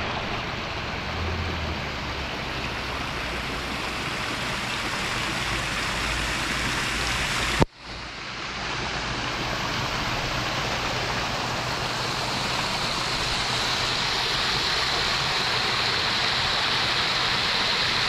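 Water spilling down a small stepped stone cascade into a shallow pool, a steady rushing splash. A sharp click and a brief dropout break it about eight seconds in, and it runs a little louder after that.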